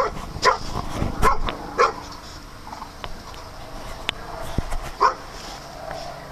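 A dog barking: four short, sharp barks in the first two seconds, then one more about five seconds in.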